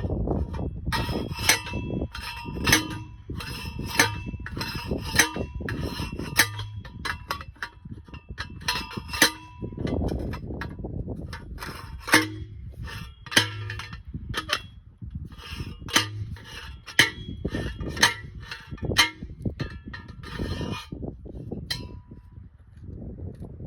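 Post driver striking a steel angle-iron fence post being driven into stony ground: repeated ringing metal clangs, roughly one a second, with a short pause partway through, stopping near the end.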